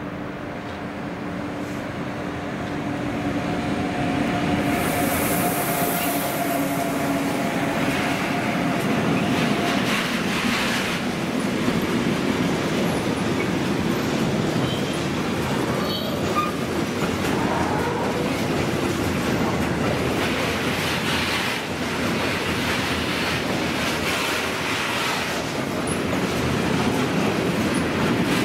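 Electric freight train with a long rake of tank wagons passing close by. For the first several seconds there is a steady two-note hum from the locomotive, and it grows louder as the train comes near. Then comes the continuous noise of wagon wheels on the rails, with many clicks from wheels passing over the rail joints.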